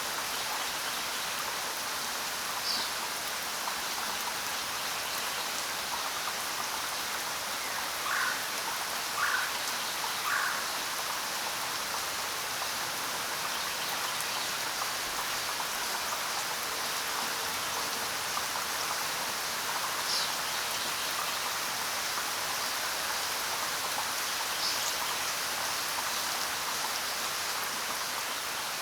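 Steady rainfall, an even hiss of drops on a surface. A few single drops or splashes stand out louder, three of them about a second apart roughly a third of the way through.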